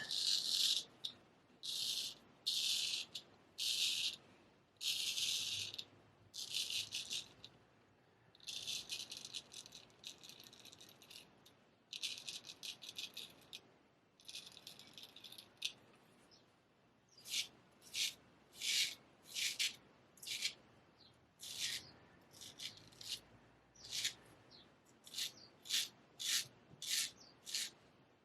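Straight razor scraping through lathered stubble in a series of separate strokes. The strokes are longer at first, then shorter and quicker through the second half.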